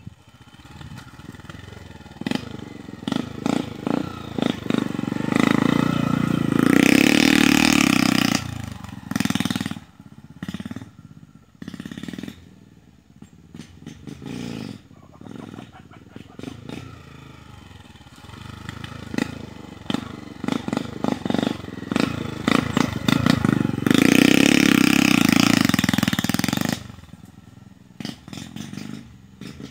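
Honda Titan small single-cylinder four-stroke motorcycle revving hard as it is ridden up a steep dirt bank, with the throttle blipped on and off in short surges. Two long stretches at full throttle stand out, one about a quarter of the way in and one near the end.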